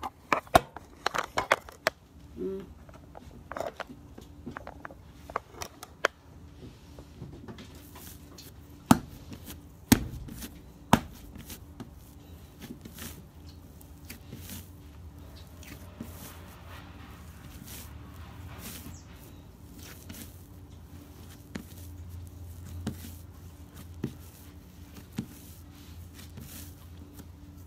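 Hands kneading bread dough on a counter: scattered soft pats and squishes, with three sharp knocks about a second apart around nine to eleven seconds in.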